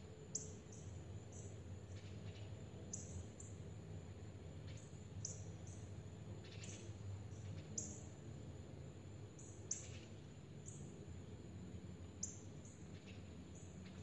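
Small songbird giving short, thin, high chirps, irregularly about once or twice a second, over a steady low rumble.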